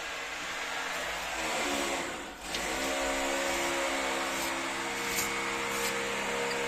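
An electric power tool's motor running steadily with a whine. About two seconds in it slows and briefly drops out, then runs steady again.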